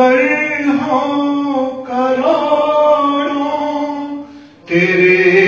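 A man singing an Urdu naat unaccompanied into a microphone, holding long, drawn-out notes that bend up and down. Near the end there is a short breath pause, then the next phrase begins.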